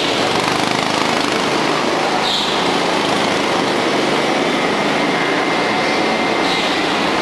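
Go-kart engines running steadily as karts lap an indoor track, one kart coming round the corner and passing about midway.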